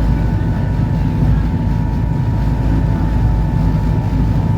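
Electric passenger ferry under way, heard from on board: a steady low rumble with a constant thin whine running over it.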